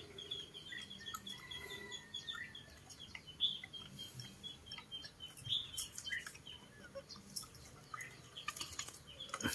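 Faint, thin chirping of small birds, repeating quick high notes throughout. From about six seconds in there are scattered clicks and rustling as a spotted dove is handled and put back into a bamboo-and-wire cage.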